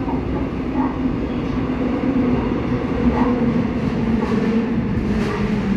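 Seoul Line 8 subway train in motion, heard from inside the car: steady wheel and track rumble with a low hum from the GEC Alsthom GTO VVVF traction inverter and motors. The hum dips slightly in pitch near the end.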